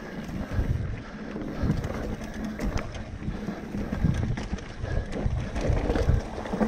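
Mountain bike riding along a rooty dirt trail: uneven low rumble and wind buffeting on the microphone, with scattered clicks and rattles from the bike.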